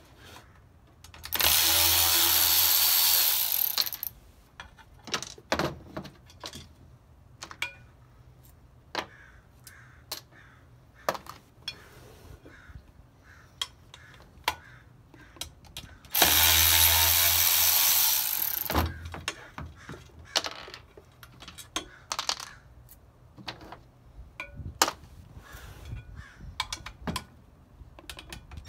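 Cordless Milwaukee power ratchet running in two steady bursts of about three seconds each, about a second in and again past the midpoint, spinning nuts off the bolts of a two-piece brake rotor. Between the bursts, light metallic clicks and clinks of the socket and nuts being handled.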